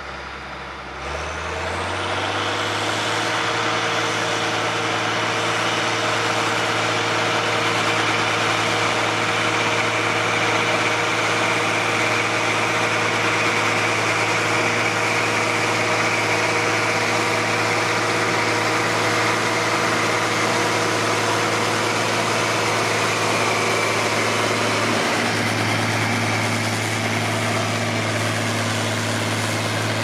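Fiat 180-90 tractor's six-cylinder diesel engine working under load while pulling a mounted plough through the soil. The engine note rises and gets louder about a second in, then holds steady.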